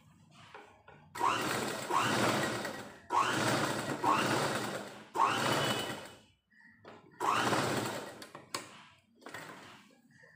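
Motorised domestic sewing machine stitching a sleeve seam in four short runs of one to two seconds each, every run starting with a quick rising whir as the motor speeds up. A few faint taps near the end.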